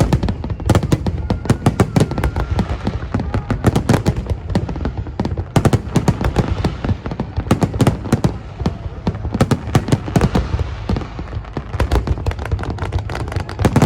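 Fireworks display: a dense, unbroken barrage of bangs and crackles, several every second, with no let-up.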